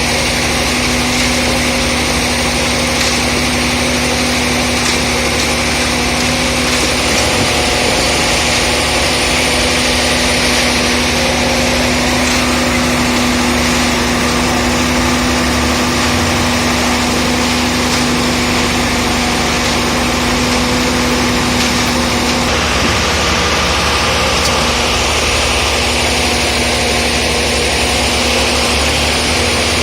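Diesel engine of a concrete mixer pump running steadily with a constant hum; the tone changes slightly about two-thirds of the way in.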